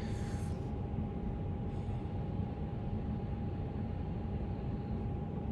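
Steady low background hum with a faint constant high tone running through it, and a couple of brief soft hisses.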